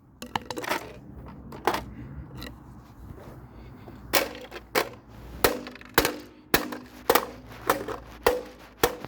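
A plastic toy cash register being struck and broken apart: a series of sharp cracks and knocks, about a dozen in all, some with a short ringing after them. The blows pause for a couple of seconds partway through.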